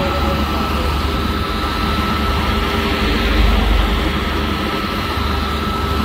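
Diesel engine of a Vibromax 752C tandem road roller running steadily, a heavy low rumble that swells briefly about halfway through, with a thin steady whine above it.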